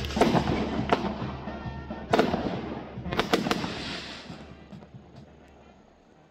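Castillo fireworks burning: a crackling hiss broken by sharp bangs, with a quick cluster of bangs about three seconds in. The crackle dies down toward the end.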